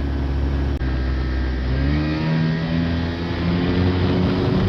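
Mini ski boat's engine running steadily, then revving up from about two seconds in, its pitch climbing as the boat accelerates.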